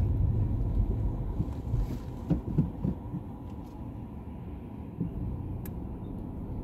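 Car engine and road rumble heard from inside the cabin while driving, growing quieter over the few seconds. There are a few short knocks about two to three seconds in and a single sharp click near the end.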